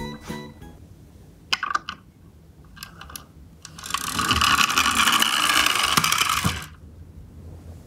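Yellow plastic toy truck's friction motor whirring loudly as the truck rolls across a wooden floor for nearly three seconds, then stopping abruptly. A few short plastic clicks and rattles come before it as the truck is handled and set down.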